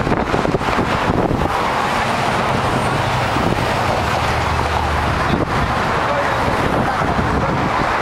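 Steady road traffic passing close by, with wind on the microphone. A low hum swells for a few seconds in the middle.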